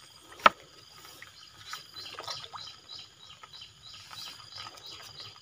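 A single sharp knock about half a second in, then faint, high-pitched animal chirps repeating a few times a second.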